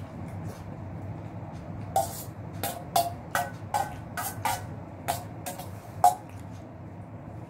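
Metal spoon clinking against a stainless steel bowl: a quick run of about a dozen ringing clinks from about two seconds in to about six seconds in, over a steady low hum.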